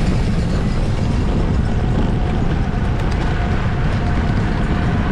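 Wind rushing over a camera microphone on a moving racing bicycle: a steady, loud rumble with no breaks.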